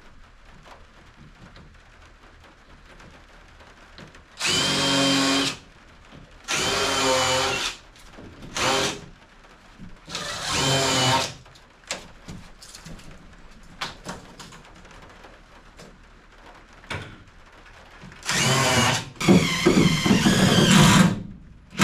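Power drill fitted with a countersink bit running in short bursts of about a second into a plywood subfloor, drilling countersunk holes so the floor screws sit flush. There are about six runs, with a long pause in the middle and the longest run near the end.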